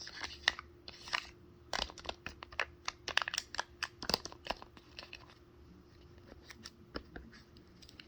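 Fingers working the pieces of a fidget board: a dense run of sharp clicks, crinkles and short scratchy rasps that thins out to an occasional click near the end.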